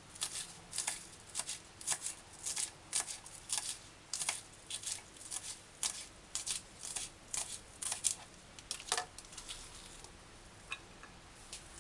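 Kitchen knife finely dicing scallion on a plastic cutting board: a steady run of quick chops, about two to three a second, that stops about nine seconds in, leaving a few light taps.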